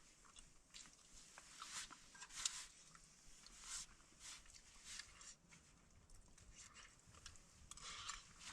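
Faint, irregular chewing of a person eating a stir-fry, in short soft bursts with pauses between.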